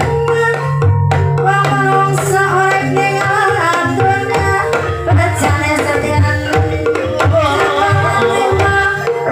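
Gamelan music accompanying an ebeg horse dance: hand drums played over ringing metallophones, with a wavering melody line on top.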